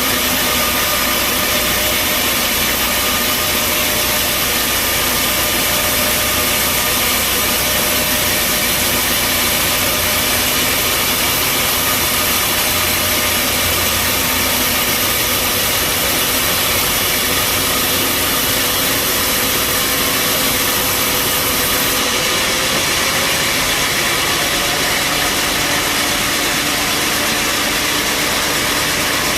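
Bandsaw sawmill running: a steady, loud machine noise with faint constant engine tones underneath, unbroken throughout.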